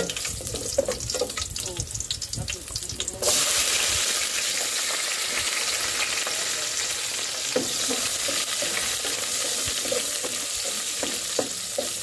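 A spoon stirring and scraping in an aluminium pot on a gas burner. About three seconds in, a sudden steady sizzle starts as chopped onions go into the hot oil, with the spoon clicking against the pot now and then as they fry.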